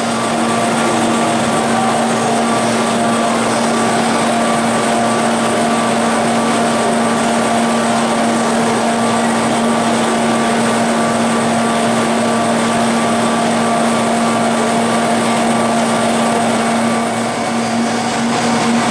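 DeVlieg 4B-96 CNC jig mill running: a steady mechanical drone with a constant hum under an even hiss, dipping slightly near the end.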